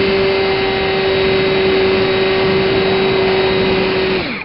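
RC airplane's motor and propeller running at a steady high pitch, with rushing air on the onboard camera's microphone. Near the end the throttle is cut and the pitch drops away quickly.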